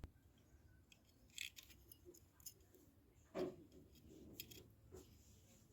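Near silence with a few faint clicks and taps of small tools and parts being handled during electronics repair work, the loudest a short knock about three and a half seconds in.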